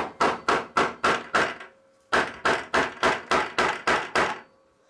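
Rapid chopping strikes of a blade on a wooden cutting board, about four a second, in two runs with a short pause between them.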